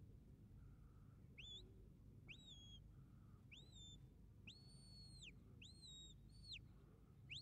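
Faint shepherd's whistle giving commands to working sheepdogs: a string of about seven short notes, most rising quickly and then held, with one longer held note about halfway through.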